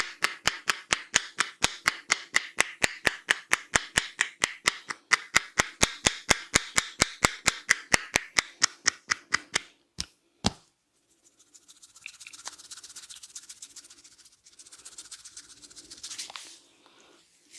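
Barber's hands striking the head in quick, even taps during an Indian head massage, about five a second, stopping about ten seconds in after two last single strikes. Then softer rubbing of hands over the hair and scalp.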